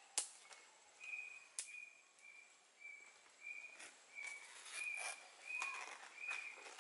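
A bird repeating one short, even, high note about one and a half times a second, over the rustle and crackle of a large banana leaf being handled on the ground. A sharp snap just after the start is the loudest sound.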